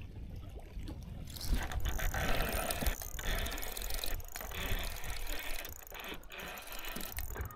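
Spinning reel ratcheting and whirring while a hooked fish is fought on a bent rod, starting about a second in with a few short breaks.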